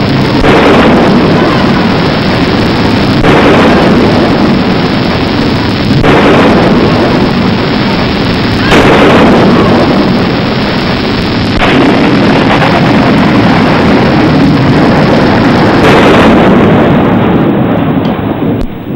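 Loud, distorted rumbling noise that shifts abruptly every few seconds and fades out near the end.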